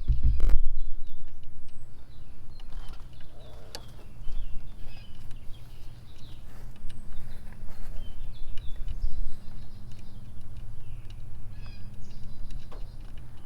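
Small birds chirping repeatedly over a steady low rumble, with a few sharp clicks, the loudest right at the start.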